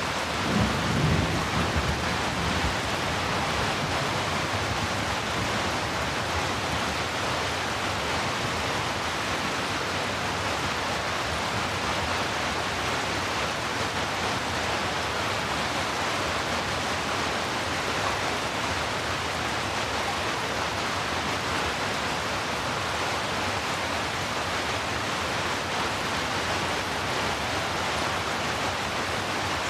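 Heavy, steady rain, with a low rumble of thunder about a second in.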